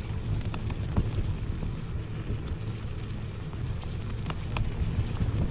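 IO HAWK Legacy electric scooter riding over a rough off-road track: a steady low rumble of wind on the microphone and tyres on the ground, with scattered clicks and rattles.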